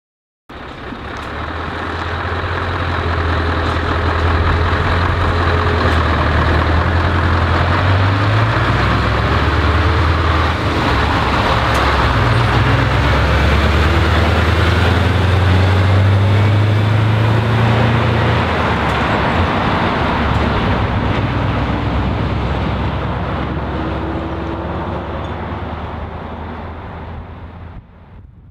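Scania R500 tanker truck's V8 diesel engine pulling past. It grows louder as the truck approaches, is loudest about halfway through as it passes, then fades as it drives away, and cuts off suddenly near the end.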